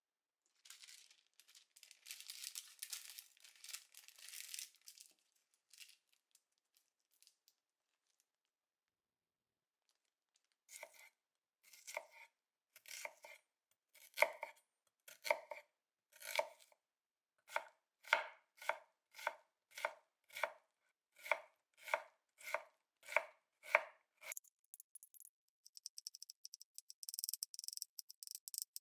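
Liquid poured from a bottle, a soft hiss for a few seconds. Then a Seki Magoroku chef's knife cuts an onion on a bamboo cutting board: separate cuts that speed up to about two a second, and near the end fast fine chopping as the onion is minced.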